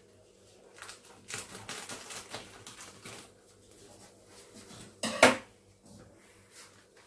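A container of amla powder being opened and handled: scattered light clicks and rustles, with one sharp, loud crack or rip about five seconds in.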